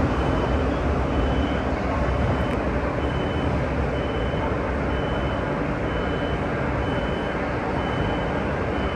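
Metro de Madrid Serie 7000 train running between stations, heard from inside the car: a steady low rumble of wheels on rail and traction, with a faint high tone pulsing about once every three-quarters of a second.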